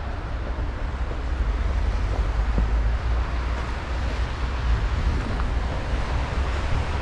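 Outdoor city ambience: a steady low rumble under an even wash of noise.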